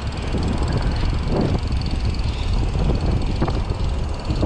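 Wind rumbling on the microphone over a steady haze of city traffic noise.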